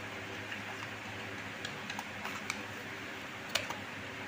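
Scattered light clicks and taps of small metal chainsaw parts and a hand tool being handled while the chain-oil pump is taken apart, the sharpest click about three and a half seconds in, over a steady background hum.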